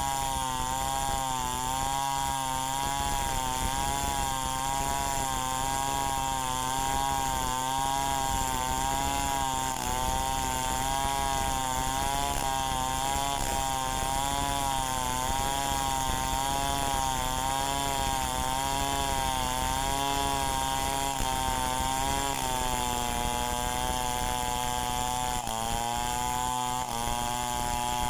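Two-stroke chainsaw engine running steadily at high revs, its pitch wavering slightly throughout and dipping twice in the last third.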